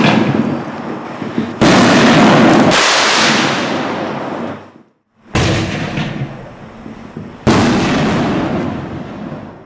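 Black Cat Neon Diablo 24 consumer fireworks cake firing aerial shells: three sharp bangs, about one and a half, five and seven and a half seconds in, each trailing off over a couple of seconds, following the fading tail of an earlier bang.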